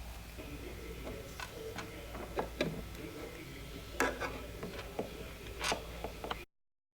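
Plastic toy horse figures and accessories being handled and moved on a hard surface, giving a scattered run of light clicks and taps. The sound cuts off abruptly near the end.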